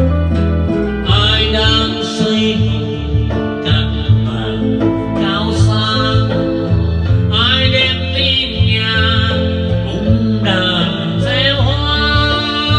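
A man singing a Vietnamese ballad into a microphone over backing music, in several sung phrases that begin about a second in.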